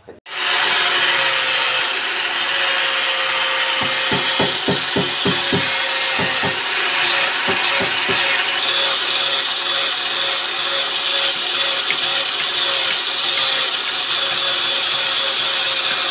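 Angle grinder with a sanding disc running against wood, a steady motor whine under loud grinding noise. A run of rapid knocks comes about four to eight seconds in, and the sound starts and stops abruptly.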